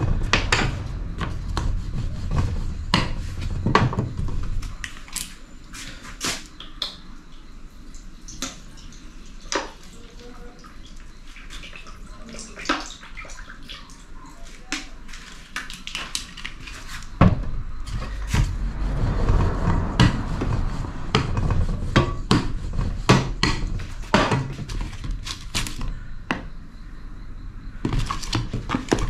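Scattered clicks and knocks of kitchen work on a glass tabletop: a wooden rolling pin rolling out dough, and near the end a spoon scraping mashed potato filling out of a plastic tub.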